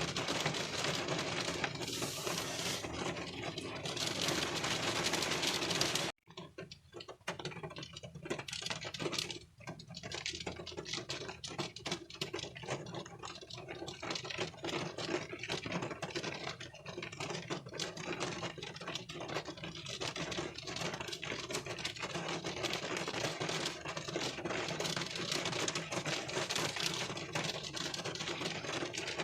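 Rain pattering on a car's windshield, heard from inside the car: a dense, steady patter of drop impacts. About six seconds in the sound cuts out for an instant, then the patter comes back sparser and builds up again.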